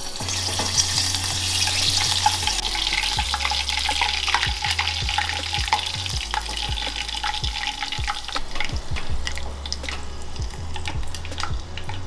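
Whole crickets deep-frying in a small pot of hot oil: a loud sizzle crackling with sharp pops. It is strongest for the first two or three seconds, as they go into the oil, then eases off.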